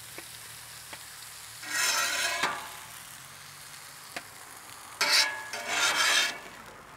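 Metal spatula scraping across the steel cooktop of a Camp Chef flat-top griddle, pushing pieces of meat onto a sheet pan: three scrapes, one about two seconds in and two close together near the end, with a few light metal clicks. Under it the meat sizzles steadily on the hot griddle.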